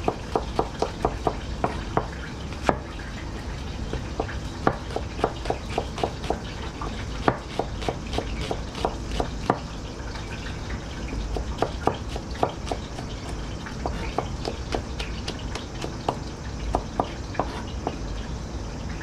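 Kitchen knife slicing an onion on a cutting board: quick, irregular knocks of the blade on the board, several a second in runs with short pauses, over a steady low hum.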